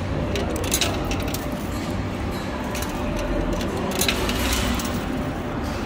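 Metal peso coins clinking in a coin pusher arcade machine, in scattered short clicks as coins are fed in and drop onto the shelves, over a steady low hum.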